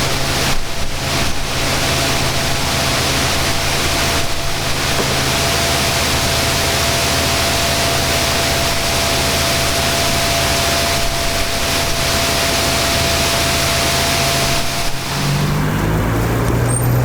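A tour boat's motor running steadily with a rush of water and wind. Near the end the motor's note rises.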